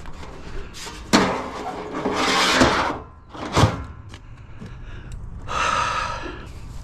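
Hard objects being handled: a sharp knock, a scrape, another knock, then a longer scraping rub, like scrap pieces being set down and slid into place.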